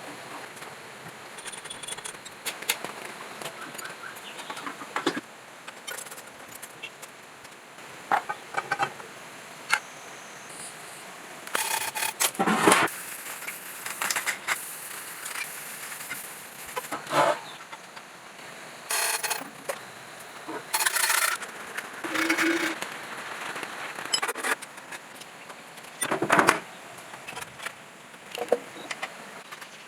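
Irregular clicks and knocks, with a few short louder clattering bursts, as of hand work on metal parts.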